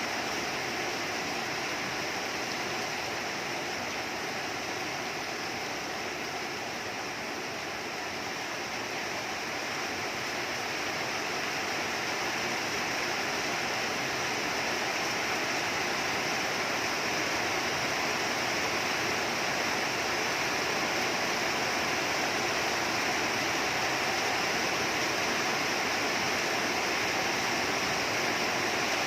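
Heavy rain falling steadily, an even hiss that grows a little louder in the second half.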